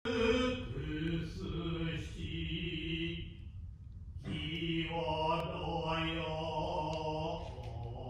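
A male kyogen actor's chanted stage declamation in Japanese: one voice holding long, steady pitched syllables, with a short pause about four seconds in.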